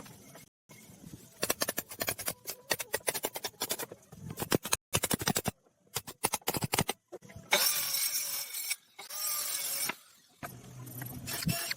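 Woodworking sounds in short cut-together bursts: runs of rapid sharp knocks and taps, then a noisy whirr like a small power tool running for about two seconds.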